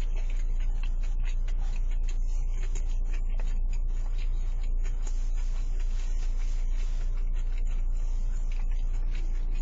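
Someone chewing food, with faint small clicks from wooden chopsticks against a plastic food container, over a steady low hum.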